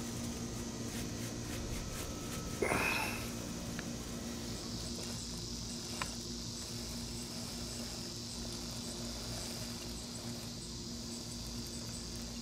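Insects chirring steadily in the background: an even high drone with faint regular ticks, over a steady low hum. A brief loud sound comes about two and a half seconds in.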